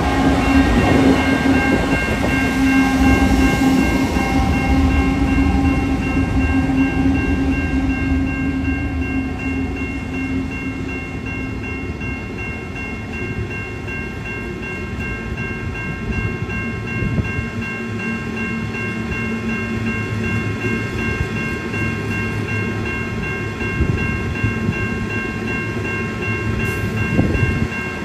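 Heavy iron ore train rolling past. A low steady engine-like hum and rumble is loudest over the first several seconds, then fades. The steady rumble of the passing ore wagons remains, with thin steady high-pitched tones above it and a few knocks near the end.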